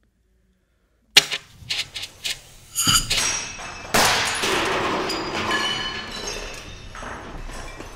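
Experimental electroacoustic music: after a second of silence, a string of sharp clicks and knocks, a short burst with ringing metallic high tones about three seconds in, then a loud hissing noise with faint high tones that starts suddenly about four seconds in and slowly fades.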